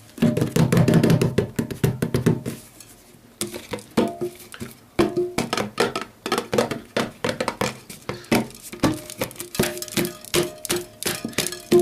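A jar being drummed by hand: quick rhythmic taps, several a second, each with a short ringing tone. A loud, low held sound opens the first couple of seconds before the tapping settles into its beat.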